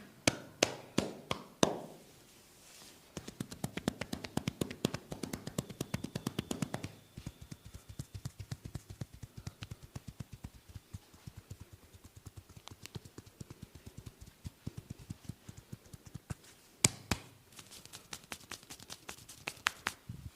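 Rapid percussive massage strokes, a barber's hands or chopsticks tapping and slapping on a person's head, several strikes a second in quick runs, with a few louder slaps in the first two seconds and again near the end.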